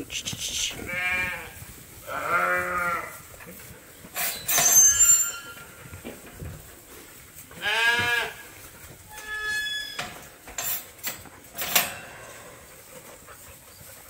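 Sheep bleating: two wavering bleats in quick succession, then a third several seconds later. Between them come a few sharp clanks and rattles, one loud and ringing like struck metal.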